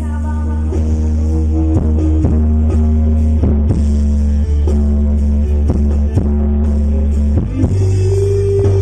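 Loud music over a large PA sound system: a heavy held bass with a steady drum beat about two hits a second, and a sustained higher note coming in near the end.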